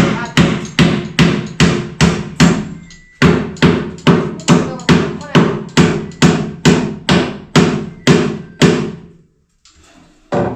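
Hammer blows driving nails into wooden kitchen cabinets during installation, struck steadily at about three a second. The blows pause briefly about three seconds in, stop near the end, and one last blow follows.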